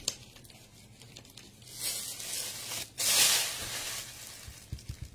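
Thin plastic bag crinkling as it is handled, in two bursts about a second apart, the second louder, with a few soft knocks near the end.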